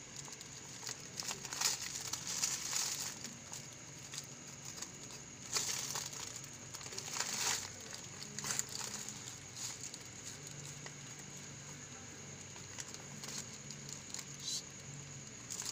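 Thin clear plastic bag crinkling in irregular bursts, with quieter gaps, as a cat lying inside it shifts its body.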